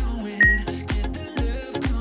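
Upbeat dance music with a steady beat, about two kicks a second. About half a second in comes one higher, longer electronic beep from the workout interval timer, marking the start of the next exercise.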